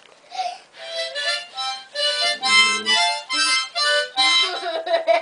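A child blowing and drawing on a harmonica: a string of short chords that jump in pitch, with one held longer about halfway through.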